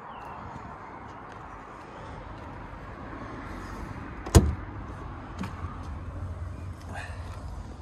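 A car door, probably the 1957 MGA roadster's, shut once with a single sharp slam about halfway through, over a low steady rumble.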